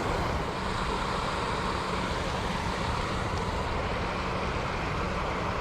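Steady rushing of creek water flowing over rocks, an even hiss with no changes.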